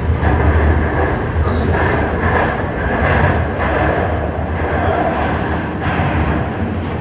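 Shenzhen Metro Line 1 train running between stations, heard from inside the carriage: a steady loud rumble of wheels and running gear on the rails.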